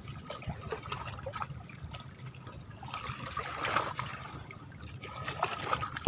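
Shallow lake water lapping and trickling, with small scattered splashes and a louder swish about three and a half seconds in.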